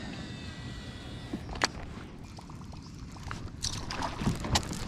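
Water lapping and trickling against a kayak hull, with a few sharp clicks and knocks scattered through.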